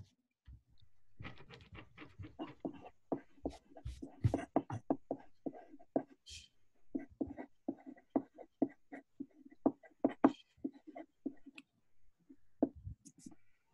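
Handwriting on paper: a quick, irregular run of short scratchy strokes, starting about a second in and thinning out near the end.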